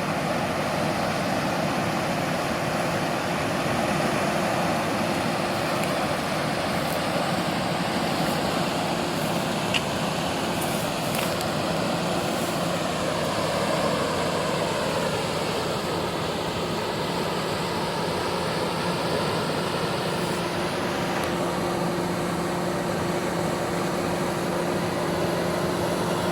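A motor running steadily: a constant low hum over a wash of noise, with no change in speed.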